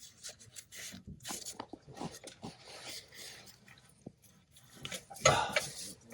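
Rubbing and scraping of hands and a metal tool working in a cramped engine bay, with scattered small clicks and one louder scraping clatter about five seconds in.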